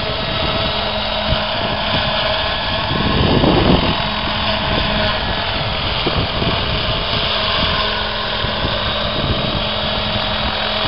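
Large radio-controlled model helicopter hovering under a heavy-lift load of house bricks: its engine and rotor run steadily, with a slight swell about three seconds in.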